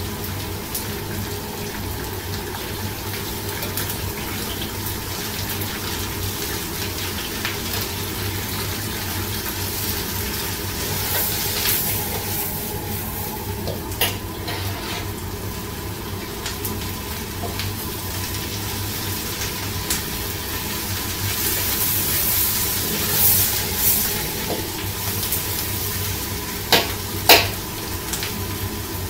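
Vegetables sizzling in oil in a steel wok as they are stir-fried with a Chinese ladle, over a steady low hum. The sizzle swells a couple of times as the vegetables are tossed. The ladle knocks sharply against the wok once mid-way and twice in quick succession near the end.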